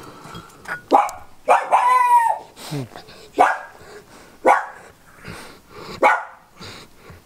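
A dog, an Old English Sheepdog, making a string of short vocal sounds roughly once a second while its ear hair is plucked, with one held longer about two seconds in. The owners take these noises for a sign that he enjoys the plucking.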